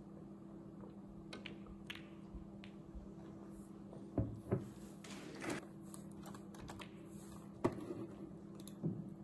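A steady low hum with scattered sharp clicks and taps: a few faint ticks early on, then louder single clicks from about four seconds in.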